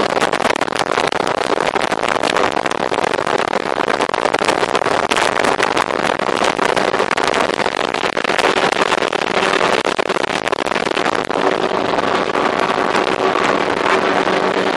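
Sport boats running fast on open water: a steady outboard engine drone under a dense rush of water and wind, with frequent short slaps of the hull on the waves.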